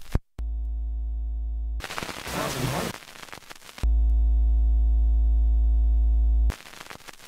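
A steady, low electronic hum sounds twice, about a second and a half and then nearly three seconds, starting and stopping abruptly, with a short noisy rushing burst between them.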